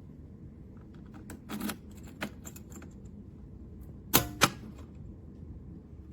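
Small clicks and taps from handling a small biometric pistol safe, then two sharp, loud clicks about a quarter second apart.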